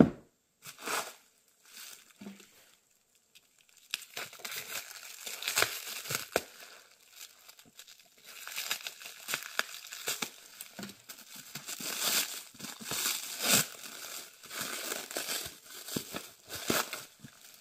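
Plastic wrap being crinkled and torn off a wrapped stack of books, a dense run of crackling from about four seconds in. A single thump right at the start.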